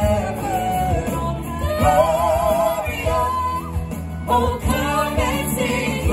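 Music: a song with a singing voice over instrumental backing, the voice holding wavering notes.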